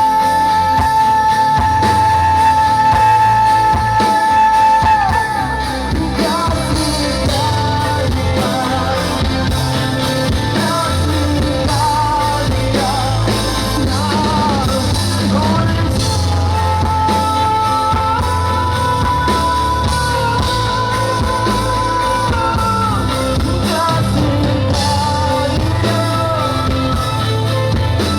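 Live rock band playing with a singer over drums and guitar; a long held high note sounds for the first few seconds and again about two-thirds of the way through.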